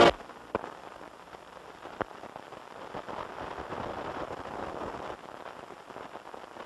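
Faint hiss and crackle of an old film soundtrack, with two sharp pops about half a second and two seconds in.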